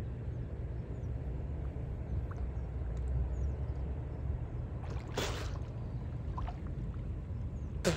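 Lake water sloshing around men wading chest-deep, over a steady low rumble. A louder splash comes about five seconds in as a man surfaces from under the water, and a short sharp splash near the end.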